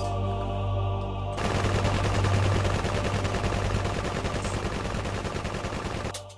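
Long, rapid burst of automatic machine-gun fire, starting about a second and a half in and cutting off suddenly near the end, over a low droning music bed.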